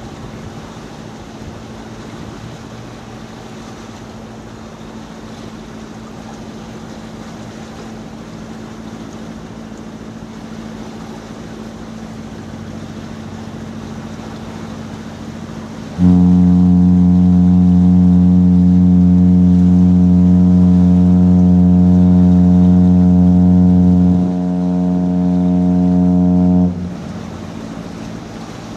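A ship's horn sounds one long, low blast of about ten seconds starting halfway through. It drops slightly in loudness near its end, then cuts off. Before it there is a steady low hum and wind noise on the water.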